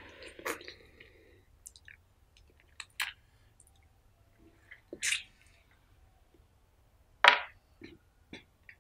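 Close-miked eating sounds from a mouthful of mutton curry and rice eaten by hand: wet chewing with scattered sharp lip smacks and mouth clicks, quiet between them, the loudest smack a little past seven seconds in.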